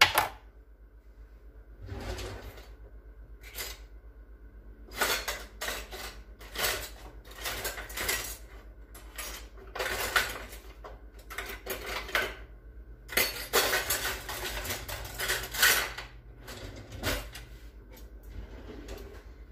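Dishes and metal utensils clattering and clinking in a run of irregular knocks, busiest in the middle stretch, over a low steady hum.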